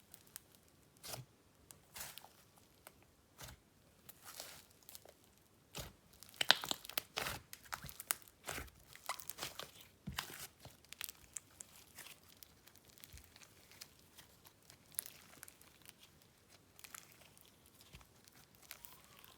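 Icing slime being kneaded and stretched by hand as clay is mixed into it, giving short sticky crackles and pops. They come thickest from about six to eleven seconds in.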